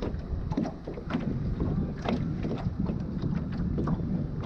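Wind buffeting the microphone, with small waves slapping against the boat's hull in irregular short knocks.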